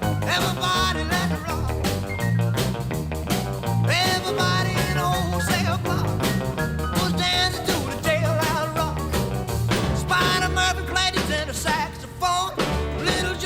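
Background rock music with a steady beat, electric guitar and singing.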